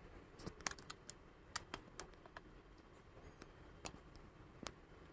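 Faint, scattered light clicks, about a dozen irregular ticks over five seconds.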